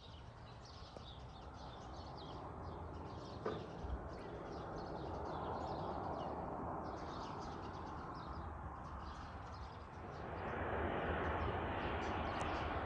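Small birds chirping over a steady distant rumble that grows louder about ten seconds in.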